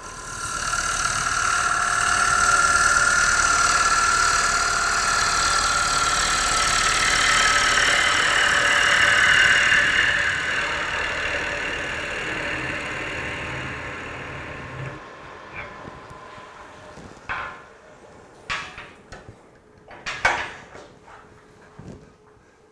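Bowl gouge cutting the inside of a spinning Bradford pear bowl on a wood lathe: a steady cutting noise with a ringing tone for about fourteen seconds, which fades as the lathe winds down. Then a few light knocks and clicks as the stopped bowl is handled.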